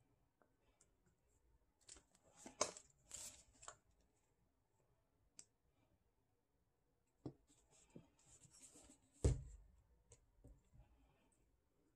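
Faint handling of a plastic cup, a craft stick and a plastic squeeze bottle: scattered light taps and scrapes, and one soft knock about nine seconds in.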